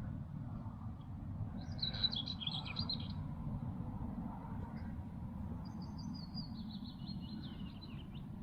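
Songbirds singing: a short twittering phrase about two seconds in, and a longer song near the end that steps down in pitch into a trill, over a steady low rumble.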